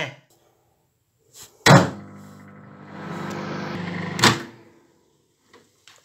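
Microwave oven running with a steady hum, with a hiss that grows partway through. It starts with a sharp click just under two seconds in and stops with another sharp click about two and a half seconds later.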